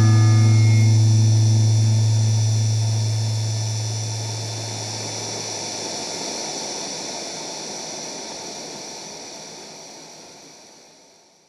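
Tail of a noise-rock song: a held low bass note rings out and dies away over the first five seconds or so, leaving amplifier noise and hiss that slowly fade out to silence at the end.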